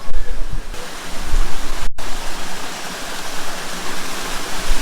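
Waterfall: a steady rush of falling water, cutting out for an instant about two seconds in.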